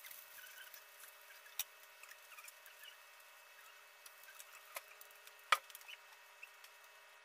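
Eggplant slices frying in oil in a pan: a faint steady sizzle with small crackles and a few sharp pops, the loudest about five and a half seconds in.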